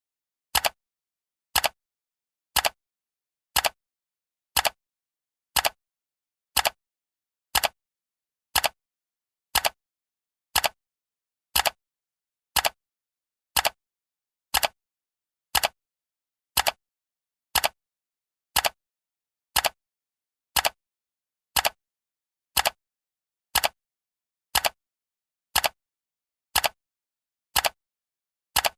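Clock ticking, one sharp tick every second with silence between the ticks, marking the seconds of a countdown timer.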